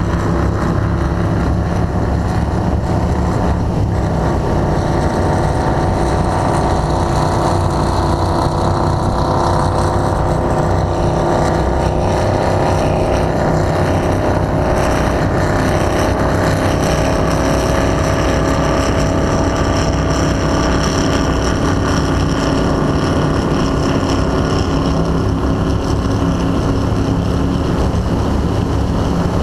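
2002 Formula 292 Fastech powerboat's engines running steadily at high speed, with the rush of the hull across the water.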